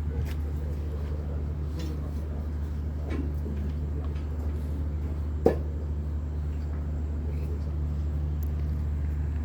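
Steady low machinery hum, with one sharp knock about five and a half seconds in.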